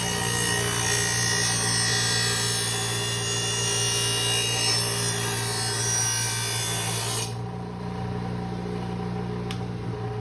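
Six-inch bench grinder running, with a steel lawnmower blade pressed to its wheel: a harsh grinding hiss over the motor's steady hum as the blade's cutting edge is sharpened. About seven seconds in the blade comes off the wheel and only the motor's hum remains.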